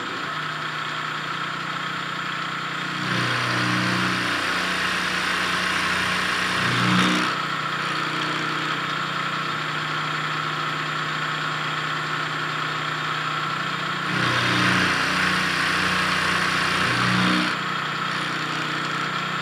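Milling machine running with a 3/8-inch end mill cutting a notch into the rim of a ductile iron gland nut. The spindle runs steadily, and the sound grows louder and harsher twice as the cutter is fed through the iron, from about three to seven seconds in and again from about fourteen to seventeen seconds in.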